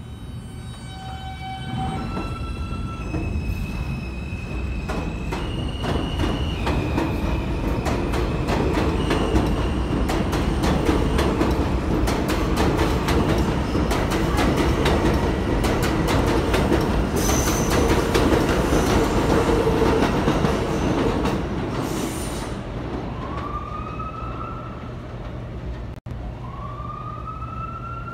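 R160A-1 subway train pulling out of an elevated station: its traction motors' whine climbs in steps as it accelerates, then the wheels clatter loudly over the rails as the cars pass, fading over the last several seconds. A siren rises twice near the end.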